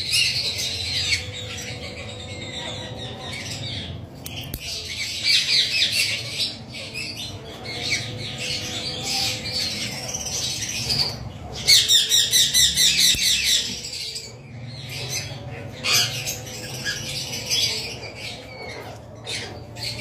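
Lovebird screeching over and over in harsh, rapid squawks while held for a beak trim with a nail clipper. The calls come in runs, with the loudest burst a little past the middle.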